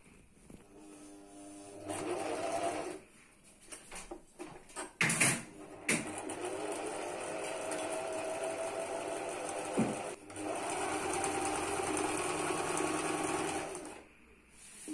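Janome electric sewing machine running, stitching a seam through two layers of fabric. It sews in three stretches: a short one, then two longer ones separated by a brief stop. A few clicks fall in the pause after the first stretch, and the machine stops shortly before the end.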